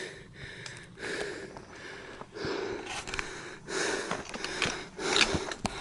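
A person breathing heavily close to the microphone while walking, with a breath about every second.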